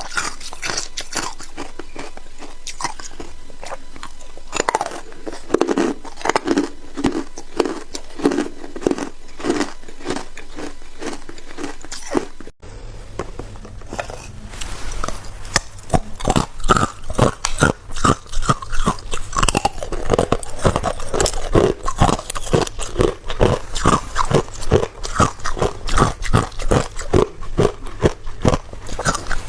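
A person biting and chewing ice: close-miked, rapid crunching, made up of many short strokes. About twelve seconds in there is an abrupt break, after which the crunching is louder and denser.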